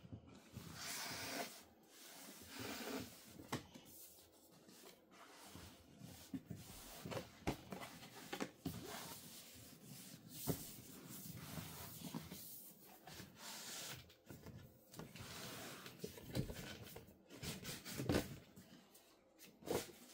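Cardboard box and packaging being handled by hand during an unboxing: irregular rubbing, sliding and rustling with scattered clicks and knocks.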